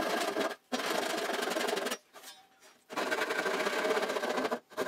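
Handsaw cutting through plywood to finish off a corner where a track-saw cut stopped short. Quick, even back-and-forth strokes come in runs, with a pause of about a second partway through.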